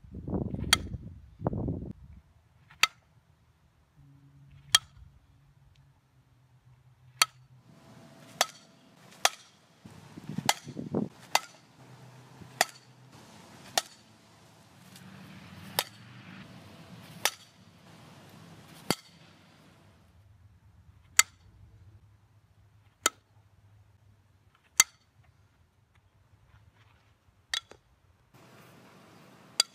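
Softball bat hitting balls off a batting tee: one sharp crack per swing, about eighteen hits spaced one to two and a half seconds apart. Brief low rumbles come near the start and about ten seconds in.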